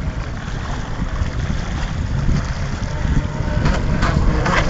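Wind buffeting the microphone in an uneven low rumble, over the wash of choppy water, with a few short crackles near the end.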